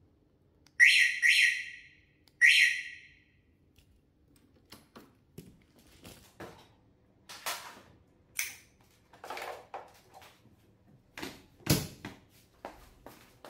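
Scooter anti-theft alarm siren giving short chirps in answer to its remote key fob: two quick chirps, then a third about a second later. After that come scattered clicks and knocks of handling on the scooter, the loudest a thump near the end.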